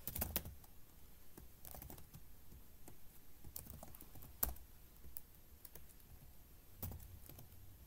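Computer keyboard typing: irregular keystrokes in short clusters with pauses between them.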